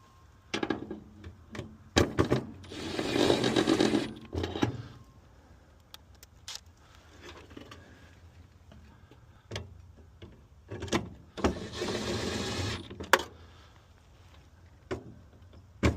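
Cordless drill with an extension driving screws in two runs of about two seconds each, with clicks and knocks of tool and parts handling between.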